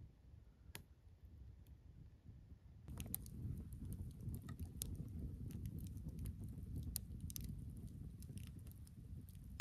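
Very faint for the first three seconds, with a single sharp click. Then a wood campfire crackles and pops over a low rumble.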